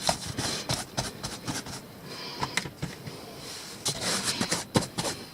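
Hands rubbing and smoothing wet plaster cloth over a paper-and-cardboard hill form: irregular rustling and scraping with scattered small taps and crinkles.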